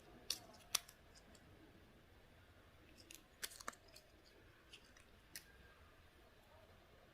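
Scattered sharp clicks and taps of small plastic packaging and toy parts being handled and opened, with a quick cluster of clicks about three seconds in.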